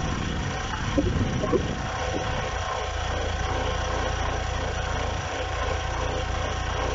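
Audi 80 engine idling with a steady hum and a faint steady whine above it, the noise of a failing water pump: its bearing is worn, and the axial play lets the impeller rub against the pump housing.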